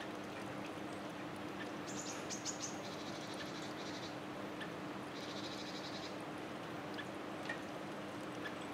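Quiet outdoor street ambience with a steady low hum, broken twice by short, high-pitched rattling trills, about two seconds in and again about five seconds in.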